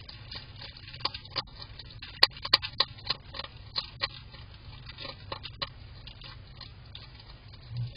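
European hedgehog eating dry food from a bowl: rapid crunching and clicking as it chews, busiest in the first five or six seconds, with two sharp clicks a little over two seconds in.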